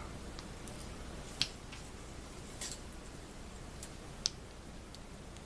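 A few light clicks and taps, with a short scrape about two and a half seconds in, as a chisel is handled and adjusted in a honing guide.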